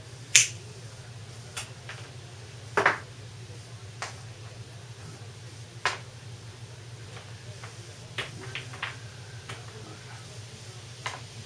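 Sharp, short clicks from small hand tools working on a motorcycle wiring connector and its wire, about eight of them spread irregularly, the loudest about half a second in and a quick cluster near two-thirds of the way through.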